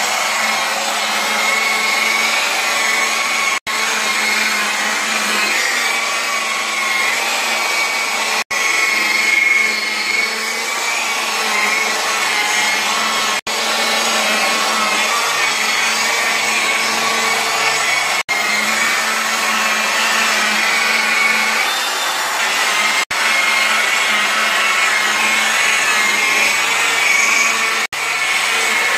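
Electric rotary polisher with a foam pad buffing car paint, its motor running with a steady whine. The sound briefly drops out about every five seconds.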